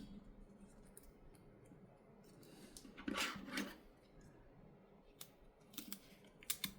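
Faint small clicks of a pry tool on a Samsung Galaxy S23 Ultra's internals as the battery connector is popped off, with a short scraping sound about three seconds in and a few sharper clicks near the end.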